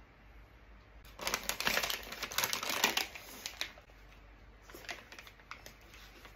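Paper sandwich wrapper crinkling and rustling as a kebab sandwich is lifted and bitten, a dense crackle lasting about two and a half seconds starting a second in, then a few faint clicks of chewing.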